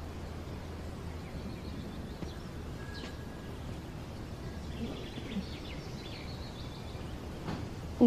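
Quiet outdoor ambience: a steady low hum, with a few faint bird chirps near the middle.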